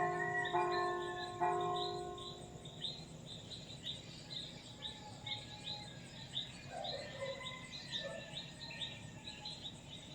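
Church bell struck a couple of times near the start, its ringing fading away over the next seconds, over a bird chirping in short high notes repeated two or three times a second.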